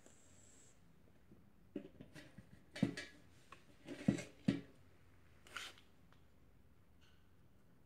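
Soft knocks and rustles as a person shifts on a metal-legged stool: a cluster of short knocks in the middle, the strongest three close together, then one brief rustle.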